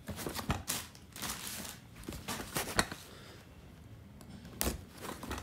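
Hands handling and opening a corrugated cardboard box: irregular taps, scrapes and rustles of cardboard.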